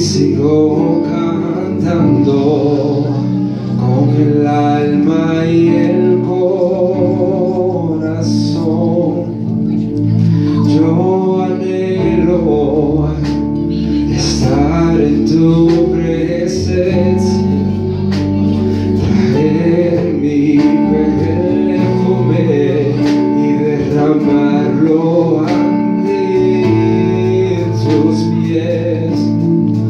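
A man singing a slow worship song into a microphone, accompanying himself on a Yamaha MO6 synthesizer keyboard that holds sustained chords under the melody.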